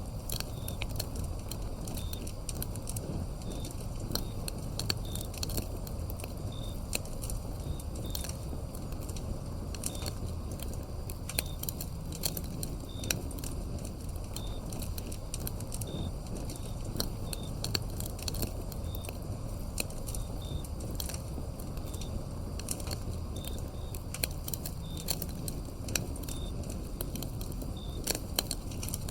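Wood fire crackling, with frequent sharp pops over a low, steady rumble of the burning logs. A cricket chirps faintly and evenly, about once a second.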